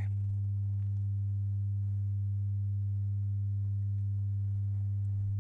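Steady low electrical hum: one deep, unchanging tone with fainter overtones above it, and nothing else.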